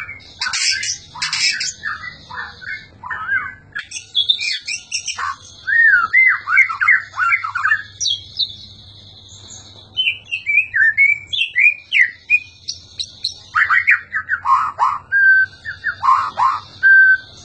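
White-rumped shama (murai batu) singing: a fast run of varied whistles, chirps and slurred notes, with a pause of about two seconds midway and a few held clear whistles near the end.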